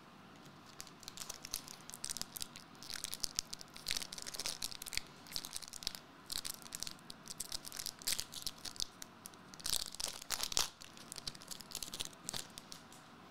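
A foil trading-card pack wrapper being torn open and crinkled, in a long run of crackling rustles that are loudest about ten seconds in.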